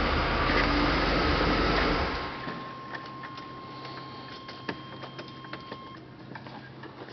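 1981 Chevrolet Corvette's 350 V8 running steadily, then falling much quieter about two seconds in, leaving a faint hum with scattered light clicks.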